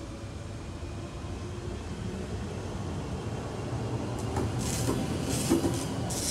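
Regio 2N double-deck electric multiple unit running past on the far track and moving away: a steady rumble of wheels on rail under a faint motor hum. A few short hissing bursts come in the last two seconds.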